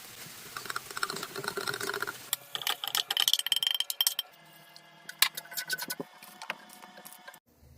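Kitchen utensils clattering and scraping against cookware: a quick run of clicks and scrapes for the first few seconds, then sparser knocks.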